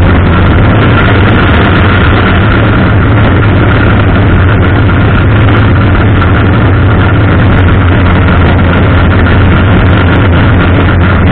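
Race car engine idling, loud and steady, heard from a camera mounted on the car itself.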